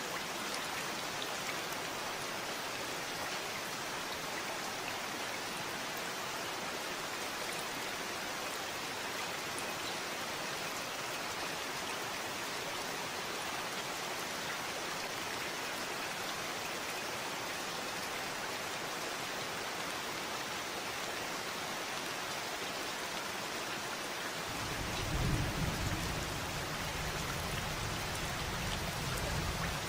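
Steady rain falling. About 25 seconds in, a low rumble of thunder starts and continues to the end.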